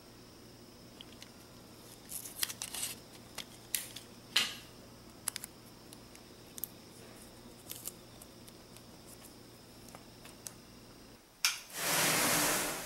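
Small scattered clicks and ticks of fingers handling thin wire strung across matchstick heads. Near the end a sharp click, then a dense hiss of about a second as the whole board of matchstick heads ignites at once.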